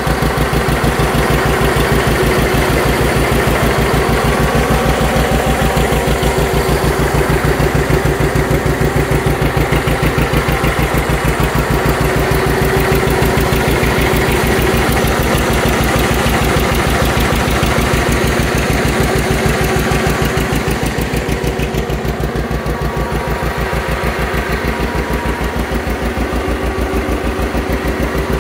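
1957 John Deere 720 two-cylinder tractor engine idling steadily, with an even, regular beat.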